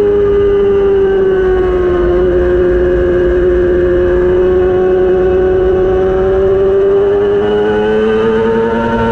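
600cc racing motorcycle engine held at high revs under load. Its pitch sags slightly over the first couple of seconds, holds steady, then climbs through the last few seconds.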